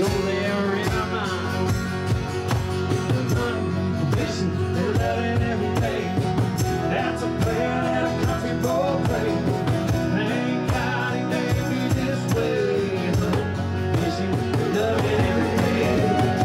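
Country band playing: strummed acoustic guitar and fiddle with a singing voice.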